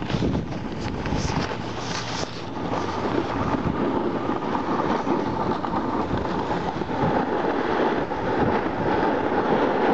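Snowboard sliding and scraping over packed groomed snow, with wind rushing over the microphone while riding downhill: a steady rushing noise, with a few sharper scrapes in the first couple of seconds.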